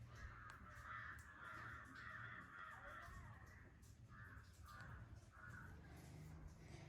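Faint bird calls: a run of short repeated calls, then three separate calls about two-thirds of a second apart.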